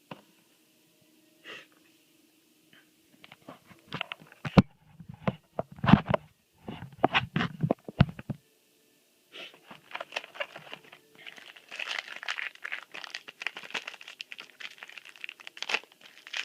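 A few sharp clicks and knocks from handling, then a long stretch of crinkling and tearing from about the middle on: a foil Yu-Gi-Oh booster pack wrapper being torn open.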